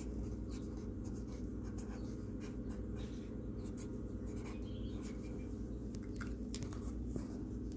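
Handling noise on a phone's microphone: a steady low rumble with many small scratches and rustles as hair and skin brush against it.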